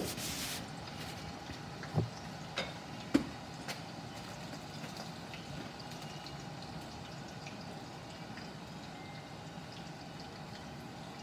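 Oil heating in a pan over a gas burner, a steady low hiss and faint bubbling. A short hiss right at the start and a few sharp knocks in the first four seconds.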